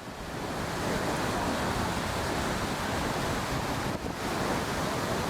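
Ocean surf washing in with wind on the microphone, a steady rushing noise that fades in over the first second.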